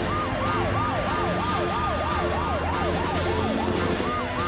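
Cartoon emergency sirens of a police car and fire truck racing to a rescue: several overlapping rapid up-and-down wails, about three a second, over a low steady hum.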